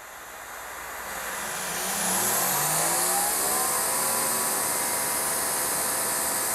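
Electric pressure washer spraying through a 40-degree nozzle: a steady hiss of water with the pump motor's pitch rising as it comes up to speed over the first couple of seconds, then holding steady under load.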